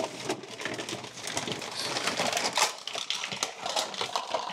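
Rummaging through a cupboard of stored household goods: plastic items and bags rustling and crinkling, with a quick run of irregular light knocks and clicks as things are shifted and pulled out.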